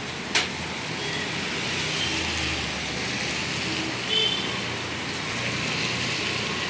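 Steady hiss of heavy rain falling, with a vehicle going by on a wet road in the middle. There is a sharp click about half a second in and a short squeak about four seconds in.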